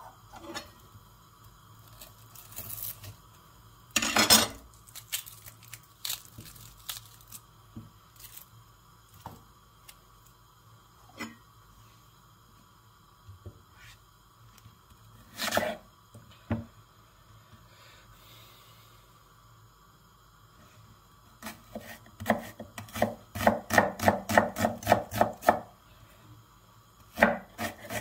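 Chef's knife chopping onion on a wooden cutting board: a quick run of sharp strokes, about five a second, about two-thirds of the way in, and another burst near the end. Before that come scattered taps, clicks and rustles of onions being peeled and handled on the board.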